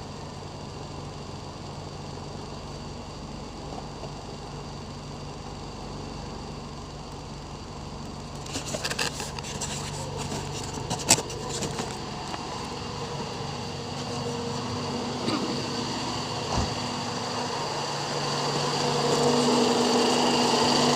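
Toyota Vios 2NZ-FE four-cylinder engine idling steadily. The owner traces its misfire to the number 1 ignition coil. About halfway through come a few sharp clicks and knocks from work around the engine, and the engine sound grows louder near the end.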